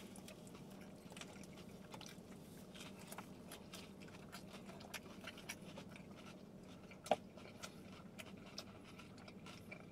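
Faint chewing and mouth sounds of people eating soft shrimp tacos, with scattered small clicks and one louder click about seven seconds in, over a faint steady hum.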